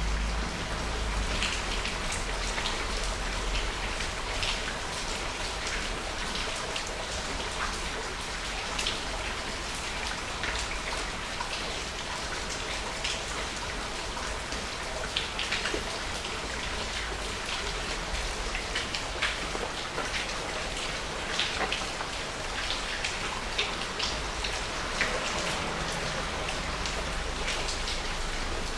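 Steady rain falling into a shallow puddle: a constant hiss with frequent, separate drop splashes close by.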